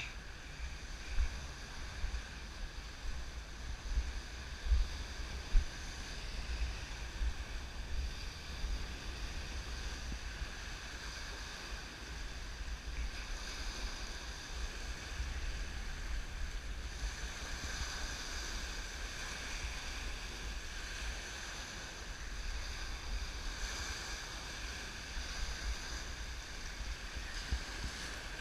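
Wind buffeting the camera microphone in gusts, with the wash of small surf breaking on the beach.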